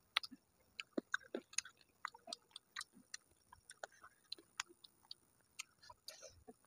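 Quiet, close-miked eating sounds: irregular soft clicks and smacks of chewing rice and chicken curry eaten by hand.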